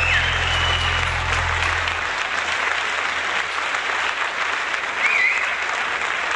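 Live audience applauding, with a couple of short whistles, at about the start and about five seconds in. A low final note of the song fades out in the first two seconds.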